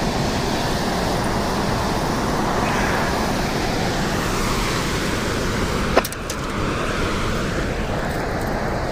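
Steady rush of water pouring through the dam's spillway gates, with one sharp click about six seconds in.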